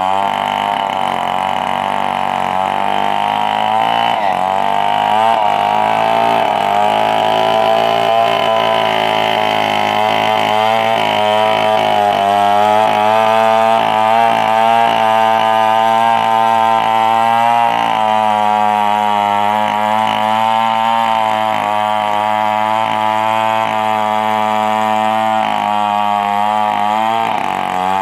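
Petrol engine of a wood saw running steadily under load through a long cut in a 4-metre log. Its pitch wavers throughout and sags briefly near the start and again near the end.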